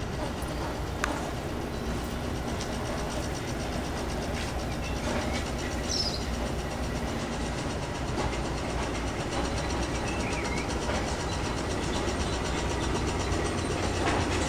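Steady low background rumble, with a faint click about a second in.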